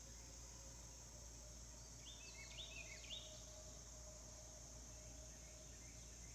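Faint, steady high-pitched chorus of insects such as crickets, with three short high calls about two to three seconds in.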